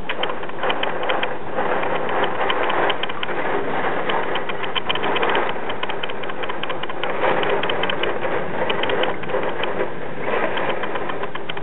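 Hurricane wind-driven rain pelting a window: a dense, fast patter of ticks over a steady rushing noise.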